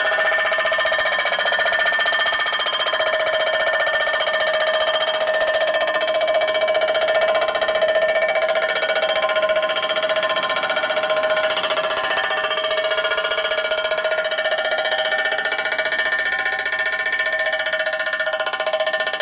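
Metal being cut on a machine tool at a slow feed, the cutter giving a steady, high ringing squeal that holds a constant pitch.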